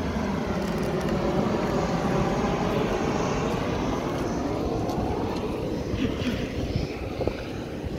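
Jet airliner passing low overhead on its landing approach. Its engines give a steady roar with a whine that falls in pitch as it goes by, and the sound eases off over the last couple of seconds.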